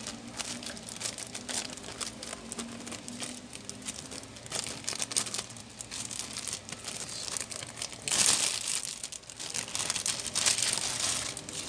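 Clear plastic wrapping crinkling and crumpling as it is pulled off a replacement laptop keyboard, with louder crumpling about eight seconds in and again near ten seconds.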